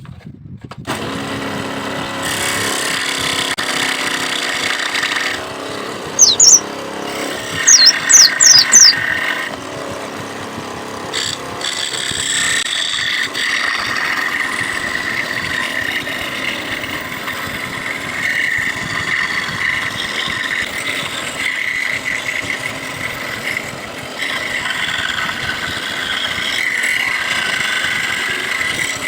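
A small power tool running steadily while working bamboo, with a few short, very loud high-pitched squeals that rise in pitch about six to nine seconds in.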